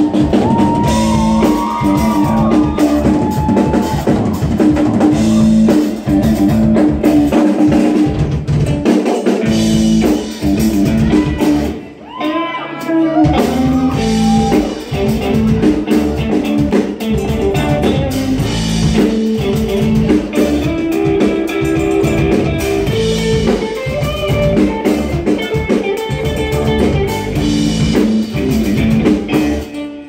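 Live rock band of electric guitars, upright bass and drum kit playing loud. A lead line glides between notes about a second in and again around twelve seconds.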